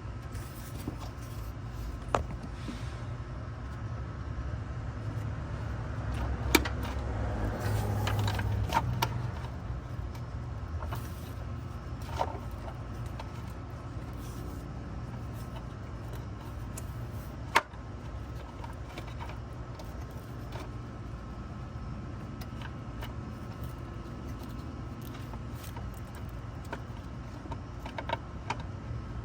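Ford Crown Victoria's V8 engine running steadily, swelling in level for a few seconds about six seconds in, with scattered sharp clicks and rattles.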